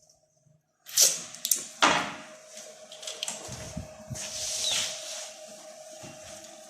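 Tools and parts being handled at a workbench: three sharp clicks and knocks about a second in, then a steady faint hum with some shuffling over it.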